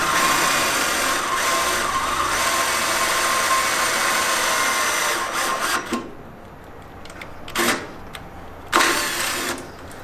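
Power drill boring holes through a steel truck frame, running steadily and stopping about six seconds in, then two short bursts of drilling.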